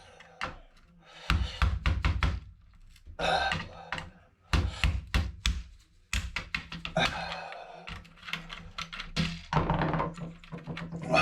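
Repeated knocks and thunks of a tool striking a computer motherboard to break a component, the microprocessor, loose. The hits come in irregular clusters.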